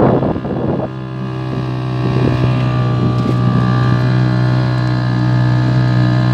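A small motorboat's engine running steadily at cruising speed, a constant low hum. A rushing noise over it dies away about a second in.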